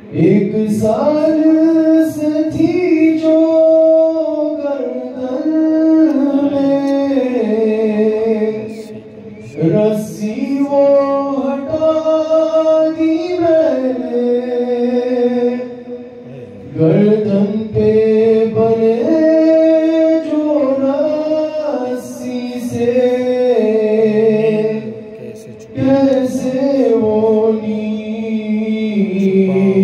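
A man's solo voice reciting an Urdu noha (mourning lament) unaccompanied into a handheld microphone, in long melodic lines that step up and down in pitch, broken by short pauses every several seconds.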